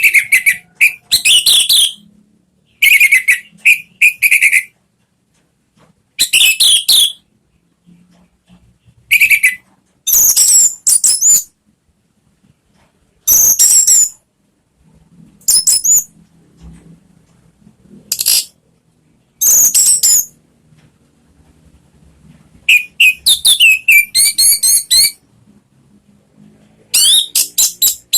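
Orange-headed thrush singing: about a dozen loud, rapidly varied whistled phrases, each lasting up to a couple of seconds, with short pauses between them.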